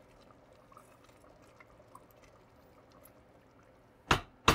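Wooden spoon stirring thick goulash in a stainless steel pot, giving faint wet stirring sounds. About four seconds in there is a loud, short knock, and a second one begins right at the end.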